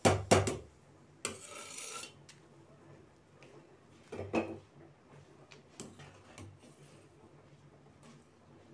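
A metal spatula clinking and scraping against a metal cooking pot as boiling rice is stirred, with a sharp knock at the start, a short scrape about a second and a half in, another knock about four seconds in, then a few faint clicks.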